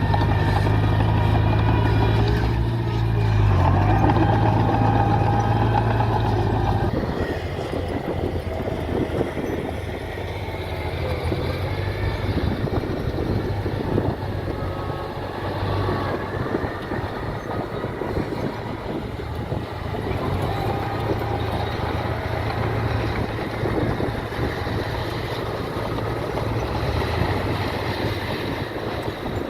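Diesel engines of heavy earthmoving machinery running. A steady engine hum changes abruptly about seven seconds in to a rougher, noisier running sound.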